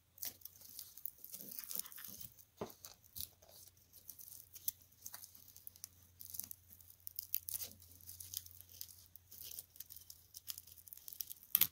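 Close-up handling of a strip of Velcro hook-and-loop tape while trying to cut it: scattered faint crackles, rasps and clicks, fairly quiet throughout.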